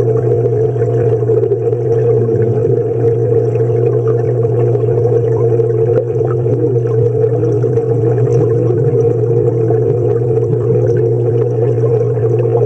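Steady underwater hum in a swimming pool, with faint wavering, warbling tones and water movement over it.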